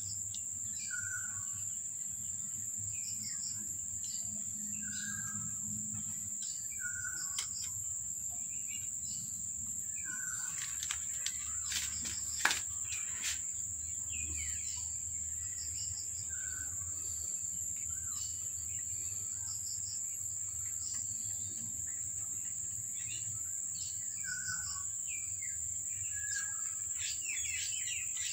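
Outdoor ambience of birds chirping, short calls repeating every couple of seconds, over a steady high insect whine. A brief rattle of clicks comes near the middle.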